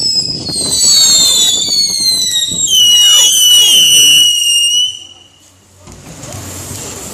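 Whistling fireworks: many loud, high whistles overlapping, each sliding down in pitch as it burns, cutting off about five seconds in and leaving only fainter background noise.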